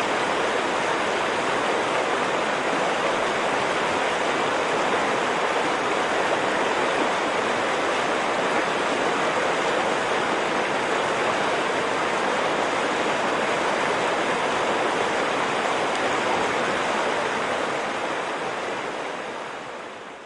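Steady rush of running stream water, fading out over the last couple of seconds.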